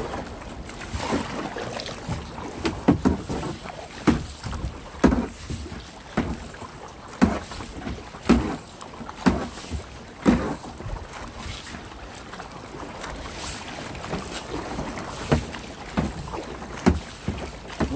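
Kayak paddle strokes splashing into choppy water about once a second, loudest in the first half, with wind buffeting the microphone.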